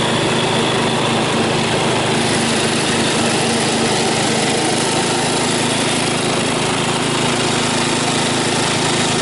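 1969 Huffy Caprice riding mower's small engine running steadily while mowing grass.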